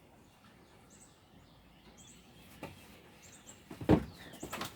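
Quiet background with faint, short bird chirps, then a single sharp knock about four seconds in followed by a few lighter clicks.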